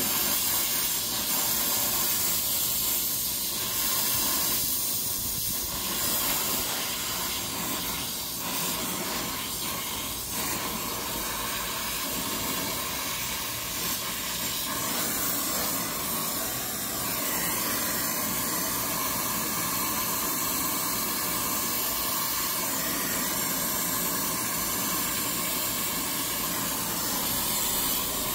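Brazing torch flame hissing steadily while copper pipe joints are heated for brazing, with the hiss growing a little brighter about halfway through.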